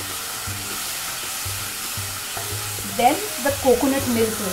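Spiced onion-tomato masala sizzling in oil in a pan while a spatula stirs it, a steady frying hiss. A voice briefly comes in over the sizzle near the end.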